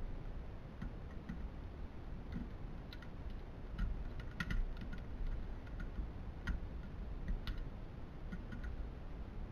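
Scattered light clicks and taps, irregular and roughly a second or so apart, from parts and tools being handled while a DLP TV is taken apart, over a low steady rumble.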